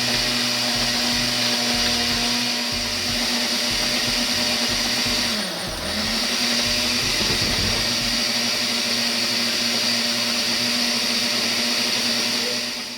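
Countertop blender running, blending cottage cheese, blueberries and sweetener into a thick purée. Its steady motor hum dips briefly in pitch about halfway through, then comes back up, and the motor winds down near the end.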